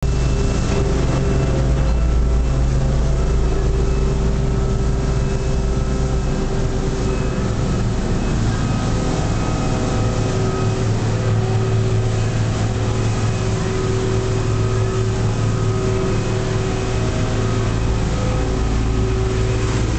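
Fishing boat's engine running steadily under way, a constant low hum with a steady pitch, heard from inside the wheelhouse.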